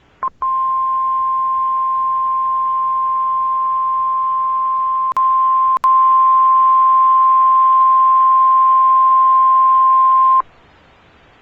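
NOAA Weather Radio 1050 Hz warning alarm tone: a single steady high tone held for about ten seconds, broken twice briefly about halfway through, then cutting off sharply. It signals that an alert message, here a tornado watch, follows.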